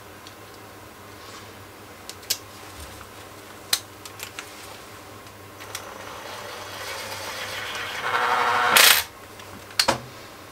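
A few light clicks of small screws and parts being handled, then a cordless drill/driver running and driving in a small screw, growing louder over a couple of seconds and stopping sharply about nine seconds in.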